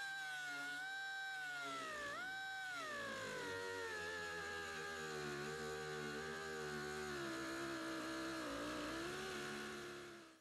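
Pneumatic cut-off tool with a thin 1/32-inch cutoff wheel cutting through sheet steel. It gives a steady whine that sags in pitch as the wheel is loaded into the metal, rises briefly about two seconds in, and stops abruptly near the end.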